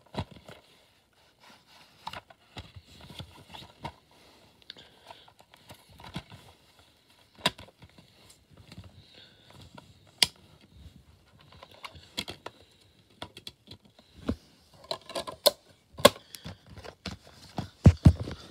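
Plastic DVD case being handled: irregular sharp clicks, rattles and rustles as the case is opened and the disc is pressed off its centre hub. The clicks grow busier near the end, followed by a few heavy knocks.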